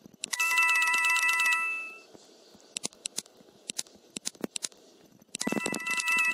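A telephone ringing with a warbling electronic ring: a burst of about a second and a half near the start, a pause, and the next ring beginning about five seconds in. A few short clicks sound during the pause.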